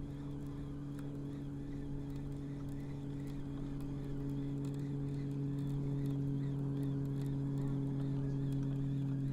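A boat engine droning steadily at a constant pitch, slowly getting louder as the boat comes closer.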